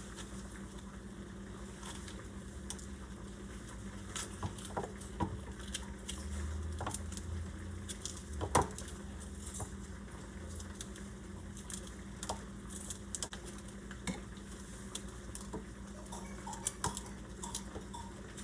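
Kitchen knife cutting hot peppers held in the hand over a plastic container: scattered soft clicks and taps of the blade and pepper pieces, with one sharper knock about halfway through, over a steady low hum.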